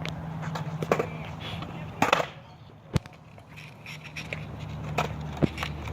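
Skateboard wheels rolling on pavement during a kickflip attempt, with a loud clatter of the board about two seconds in and a single sharp crack of the board on the ground about a second later.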